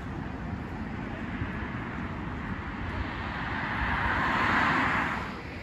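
A road vehicle passing close by: its tyre and engine noise swells from about three seconds in and drops away near the end, over a steady rumble of outdoor background noise.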